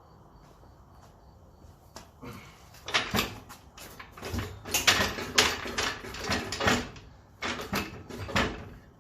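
Irregular clanking and knocking of metal as a car's rear axle assembly is wrestled on its jacks, starting about three seconds in and stopping just before the end. The axle will not come down because a bolt is still holding it up.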